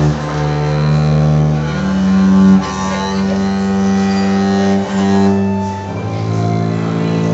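Double bass bowed in several long held notes that change pitch every second or two, as the instrument is tuned and warmed up.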